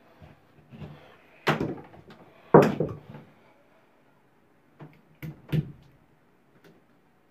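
Sharp clicks and knocks of a tire pressure gauge being poked into and pulled back out of a shower valve's stem opening, to seat its spring and gasket. The loudest knock comes about two and a half seconds in, and a quick group of three comes near five seconds.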